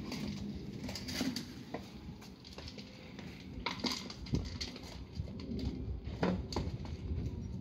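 A German Shepherd noses about for food among its treat toys and the patio furniture, giving scattered sharp clicks and knocks, the loudest about four and six seconds in. A pigeon coos in the background.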